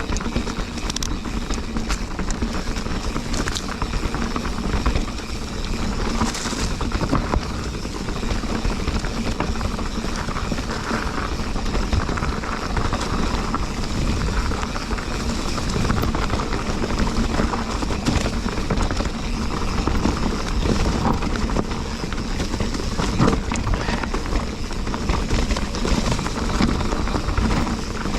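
Mountain bike ridden over rough, rocky trail: a steady rush of tyre and ride noise, with constant small clicks and rattles from the bike.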